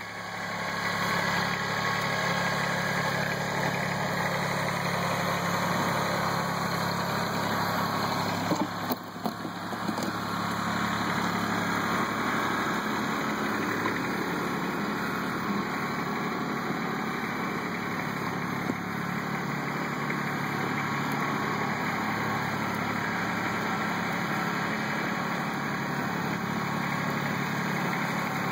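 Kubota B1700 compact tractor's three-cylinder diesel engine running steadily as the tractor works snow with its loader and rear blade, with a few knocks about nine seconds in.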